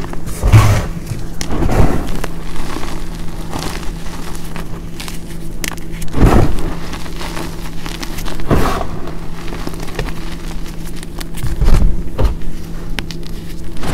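Hands crushing and raking through reformed gym chalk powder mixed with baby powder, corn starch and baking soda: crumbly crunching of packed clumps breaking apart, with soft powdery rustling. Several louder crunches stand out, the strongest about half a second in, around six seconds and around eight and a half seconds.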